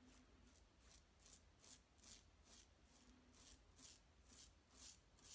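Parker 69CR safety razor, set up with its closed-comb base plate and a Voskhod blade, cutting neck stubble through lather: faint, short scraping strokes, about two to three a second.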